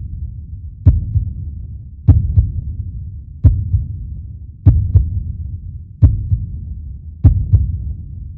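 Sharingan sound effect from the Naruto anime: a deep heartbeat-like thud about every 1.2 seconds, some of them doubled like a lub-dub. Each thud has a low rumbling tail that dies away before the next.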